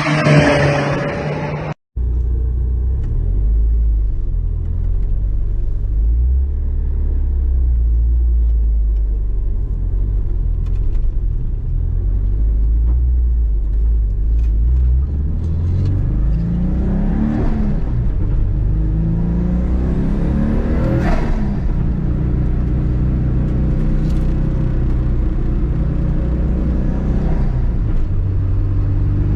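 Turbocharged EJ207 flat-four of a GC8 Subaru Impreza running on track: a deep steady rumble, with the revs climbing and dropping several times past the middle. The first two seconds hold a different sound that cuts off abruptly.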